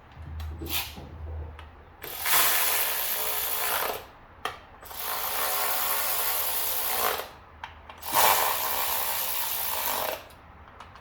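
Power tool running in three bursts of about two seconds each, driving the ignition coil hold-down bolts tight.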